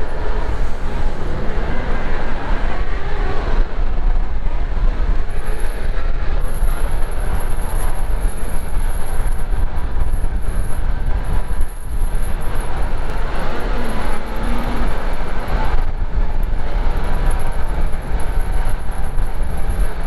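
John Deere 333G skid steer's diesel engine running hard with its mulcher head: a loud, steady machine rumble. A thin high whine joins it about five seconds in and holds.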